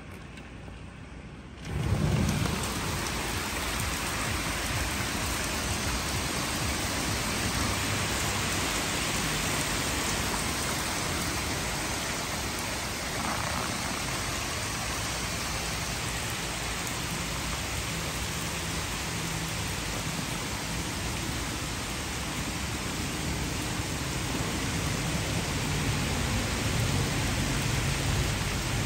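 Heavy rain pouring steadily onto a yard, trees and ground. The rain's hiss comes in suddenly about two seconds in and then holds steady.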